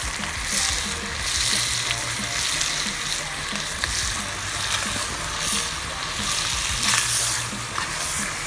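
Food sizzling and crackling in a hot frying pan.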